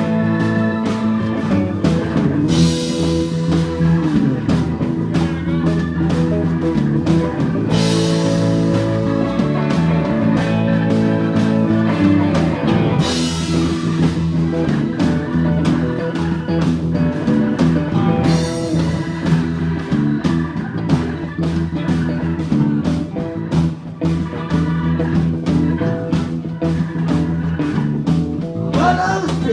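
Live rock band playing an instrumental passage: electric guitars, keyboards, bass and drum kit, with a cymbal crash about every five seconds over a steady beat.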